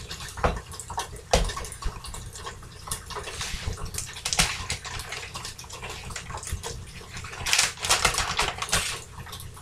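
Tofu sizzling steadily under the lid of an electric skillet, with a plastic bag of shredded cheese crinkling in bursts about four seconds in and again from about seven and a half seconds.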